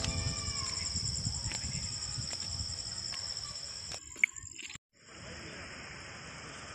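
Crickets chirring steadily in a high, finely pulsing chorus, with a low rumble under it for the first few seconds. About four seconds in there is a sharp click and a brief cut-out, after which the chirring goes on over a light hiss.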